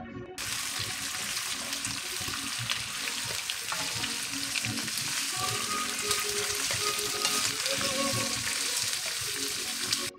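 Mixed vegetables sizzling steadily as they fry in hot mustard oil in a kadai, stirred with a wooden spatula, with small scrapes and ticks through the sizzle.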